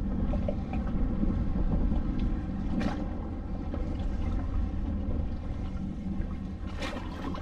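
Steady low rumble of a boat engine running at idle, with wind on the microphone and water around the hull. Two brief clicks or knocks, about three seconds in and near the end.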